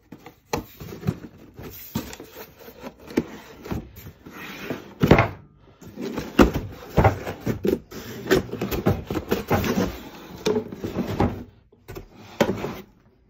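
Cardboard box being handled and opened: a run of irregular scrapes, taps and knocks from the flaps and lid, with one louder knock about five seconds in.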